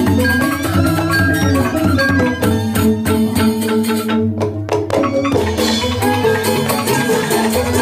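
Balinese gamelan music: mallet-struck keyed instruments and drums playing a quick, steady rhythm.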